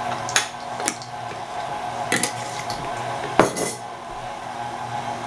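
KitchenAid Artisan stand mixer running steadily, its beater working thick chocolate chip cookie dough, with several sharp metallic clinks against the stainless steel bowl; the loudest clink comes about three and a half seconds in.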